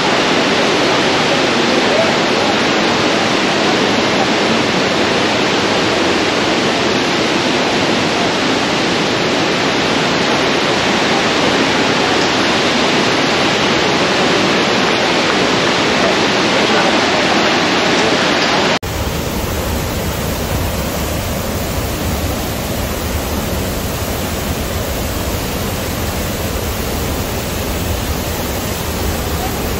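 Cascading water rushing steadily, loud and unbroken. About two-thirds of the way through it cuts abruptly to a deeper, duller rush.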